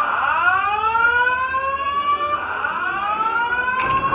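School fire alarm speaker strobe sounding its evacuation whoop tone: a rising sweep that starts over about every two seconds. A brief click near the end.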